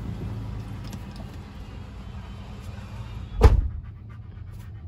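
Steady low hum of a car idling, heard from inside the cabin, with a car door slamming shut once about three and a half seconds in.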